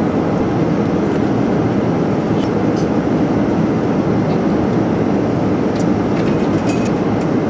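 Steady cabin noise of an airliner in flight, an even rumble, with a few faint clinks from the tableware.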